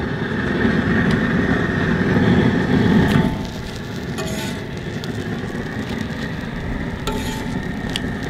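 Dual-jet propane burner running under a steel griddle: a steady rumbling hiss that drops in level about three seconds in. A few short metal scrapes or clicks come later, as a spatula works the tortillas on the griddle.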